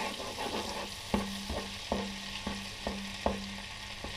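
Butter and oil sizzling in a saucepan, with a spoon knocking against the pan about twice a second as it is stirred, starting about a second in.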